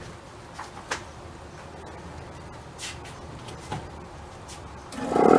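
A few faint clicks over low background, then near the end a Federal Signal Model 2 mechanical siren, run on 110 volts with its housing on, starts up and winds up, its several tones rising together in pitch and quickly getting loud.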